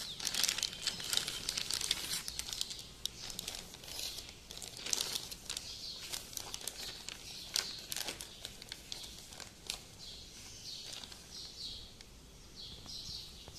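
Plastic bag around a computer motherboard crinkling and rustling as the board is handled and lifted from its box: irregular crackles that thin out toward the end.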